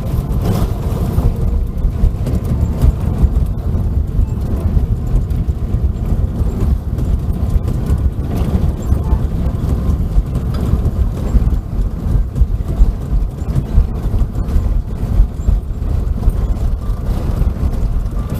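Cabin noise inside an Airbus A380: a heavy, low rumble with uneven jolts in loudness.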